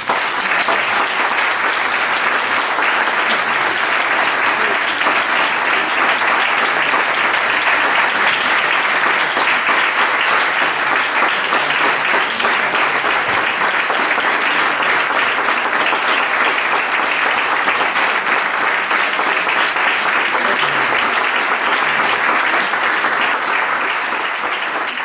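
Audience of several dozen people applauding steadily, a dense even clapping that eases off near the end.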